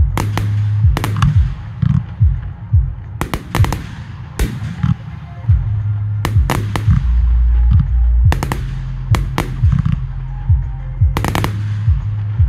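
Aerial firework shells bursting in quick succession, the sharp cracks often coming in close pairs and triples, over music with a steady low bass.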